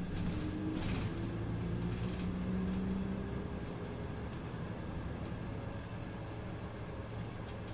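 City bus on the move, heard from inside the passenger cabin: a steady engine and drivetrain hum whose note rises gently and grows a little louder over the first few seconds, then settles. A few light rattles come near the start.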